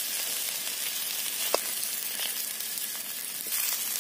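Long-cut potatoes sizzling steadily in hot oil in a steel karahi. A single sharp click about one and a half seconds in.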